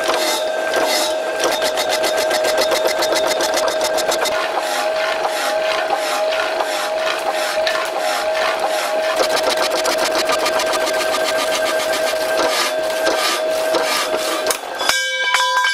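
Electric power hacksaw running, its blade reciprocating through steel square tubing under coolant: a steady motor hum with a fast, even rasp of the teeth. Near the end the saw stops and a few ringing metallic tones follow.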